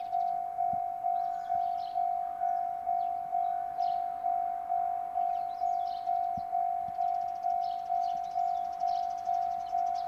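Japanese railway level-crossing alarm ringing: a bell-like electronic tone struck about twice a second, each stroke fading before the next. It signals that a train is approaching the crossing.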